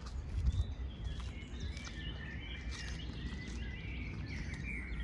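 Several small birds chirping and singing in short, quick calls, busier after the first couple of seconds, over a steady low rumble.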